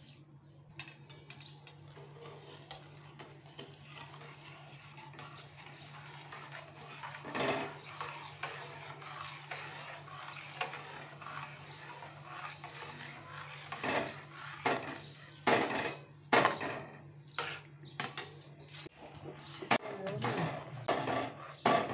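A spatula stirring and scraping semolina as it thickens in a steel kadai, with sharp knocks against the pan that come more often in the second half. A steady low hum runs underneath.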